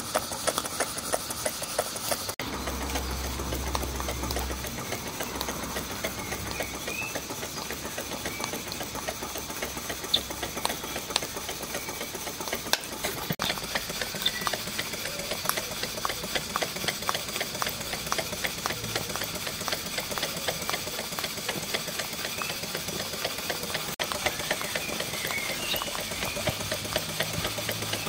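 Stuart Victoria single-cylinder model mill steam engine running under steam, with a fast, steady mechanical ticking and clatter from its moving parts.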